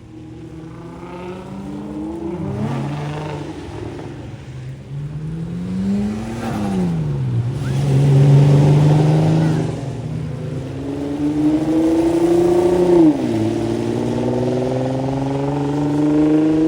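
Car engine accelerating hard, its pitch climbing and then dropping sharply several times.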